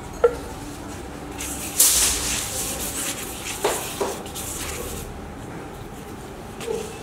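Kitchen utensils and dishes being handled while rotis are buttered and stacked: a sharp click just after the start, a stretch of scraping about two seconds in, then a few light knocks.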